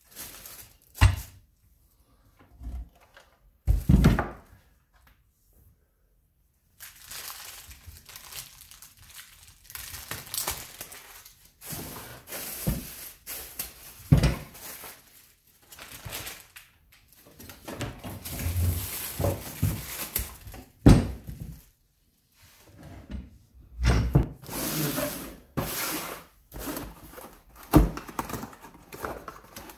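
Unpacking noises: a bike trainer's frame and cardboard boxes being handled on a workbench, with several sharp knocks and thumps among long stretches of rustling and crinkling plastic wrapping and cardboard.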